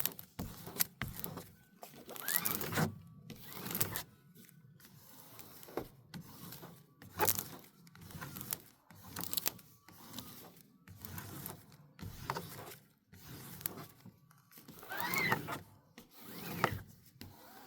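Irregular crackling, rustling and scraping of a diamond painting canvas and its packaging being handled and unwrapped.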